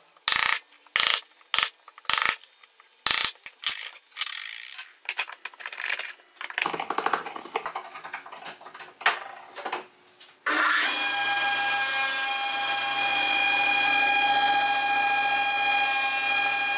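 Several sharp clinks and knocks in the first few seconds, then softer handling noises. About ten seconds in, a planer-thicknesser starts with a sudden jump in loudness and runs steadily with a high whine.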